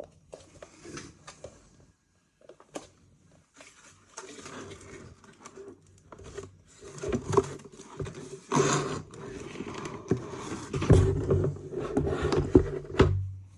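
Irregular rustling of packaging, with scattered clicks and knocks as the parts of a roof-mounted bike rack are handled and unpacked, busier and louder in the second half.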